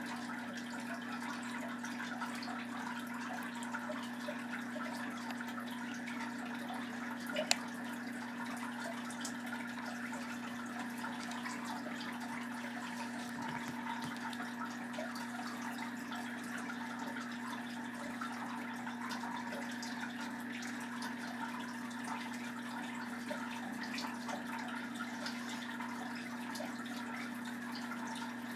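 Oil pastel scratching and rubbing across drawing paper in continual colouring strokes, over a steady low hum. A single sharp click about seven and a half seconds in.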